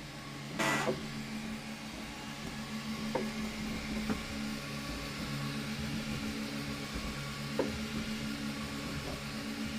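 Ultimaker 2 3D printer printing: its stepper motors hum in steady tones that start, stop and change as the print head moves, over a fan's hiss. A brief noisy burst comes just under a second in, and a few light clicks follow.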